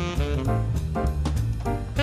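Instrumental jazz theme music: a horn melody over bass and drums with a steady beat.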